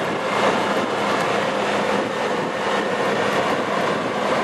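Golf cart driving along a paved road: the steady running noise of the moving cart.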